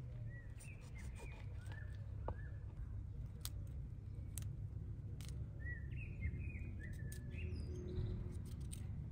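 Small birds chirping in two short runs of quick notes, with sharp clicks and snaps of a knife cutting cauliflower florets from the head, over a steady low rumble.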